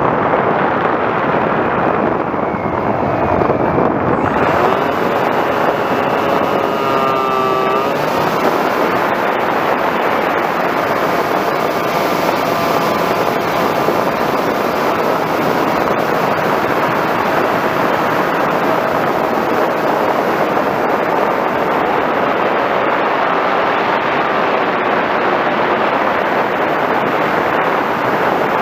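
Wind rushing over the on-board camera microphone of an FPV Raptor radio-control plane in flight, with the fainter whine of its electric motor and propeller shifting in pitch as the throttle changes.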